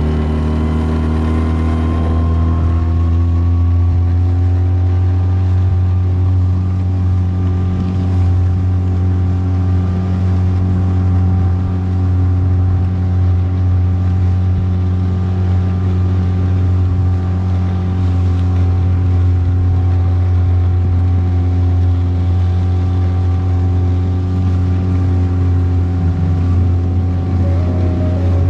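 Motorboat engine revving up, its pitch rising over the first couple of seconds, then running steadily at high speed as the boat gets under way.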